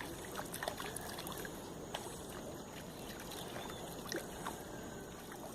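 Steady low background rush with a few faint small clicks and taps scattered through it.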